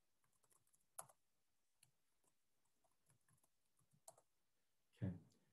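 Near silence with a few faint computer keyboard key clicks, the clearest about a second in and again just after four seconds, as a login is typed into a terminal.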